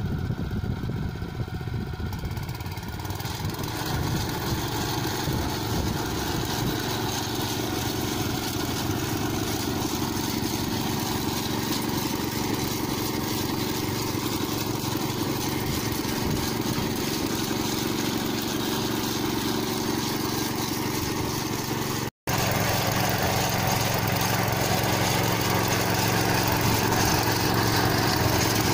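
Small tractor engine running steadily while pulling a multi-row corn seed planter. A brief dropout a little over 22 seconds in gives way to a small single-cylinder petrol engine running steadily on a walk-behind corn-row cultivator.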